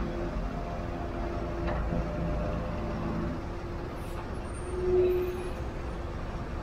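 Heavy road traffic crawling in a queue: truck and car engines running at low speed with a steady rumble. A short horn toot sounds about five seconds in.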